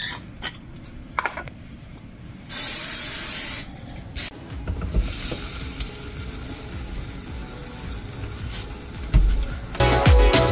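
A loud hiss lasting about a second, then a brief second hiss, with a quieter low rumble after them; music comes in near the end.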